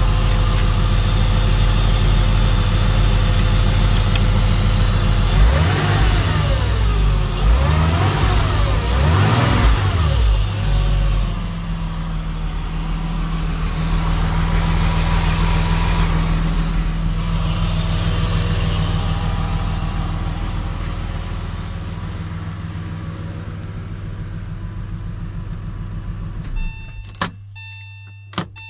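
A 1999 Porsche 996 Carrera 2's 3.4-litre flat-six idles, is revved up and down a few times, then settles back to a steady idle. Near the end the engine is switched off and cuts out suddenly, followed by a couple of sharp clicks.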